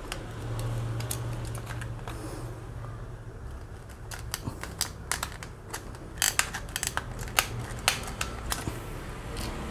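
Stapled product packaging being opened by hand: scraping and rustling, then a quick run of sharp clicks and snips from about four seconds in.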